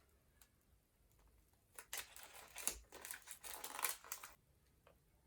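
Packaging crinkling and rustling as a bath fizzer is unwrapped by hand, in a run of rustles from about two seconds in until just past four seconds.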